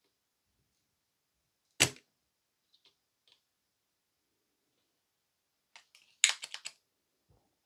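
Spring-loaded desoldering pump firing on a solder joint: one sharp snap of the released plunger about two seconds in. Near the end, a quick run of four or five clicks and knocks as the pump is handled.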